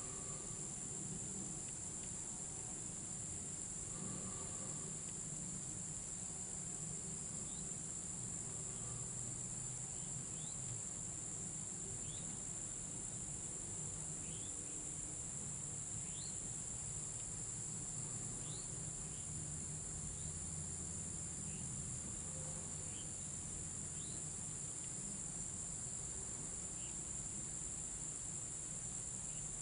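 Steady high-pitched chorus of crickets and other insects in summer woods, with a few faint short chirps scattered through it.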